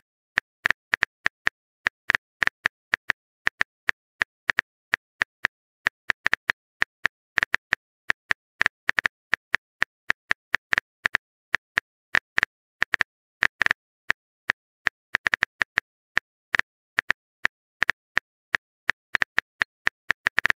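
Phone keyboard typing sound effect: a long, uneven run of short, crisp tap clicks, a few each second.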